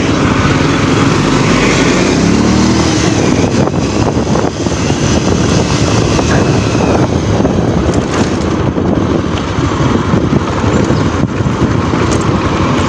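Motorcycle under way on a road, heard from the rider's seat: the engine runs steadily under a continuous rush of riding noise.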